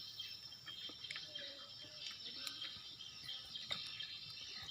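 Steady high-pitched chorus of insects, crickets or cicadas, with a few faint short clicks.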